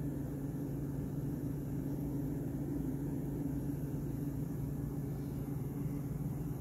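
Steady low mechanical hum with a faint even hiss, from a machine running without change.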